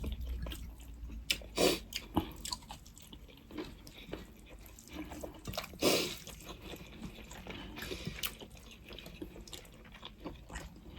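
Close-miked eating sounds of goat meat soup: chewing with small wet clicks and smacks, and a couple of louder wet bursts about one and a half and six seconds in.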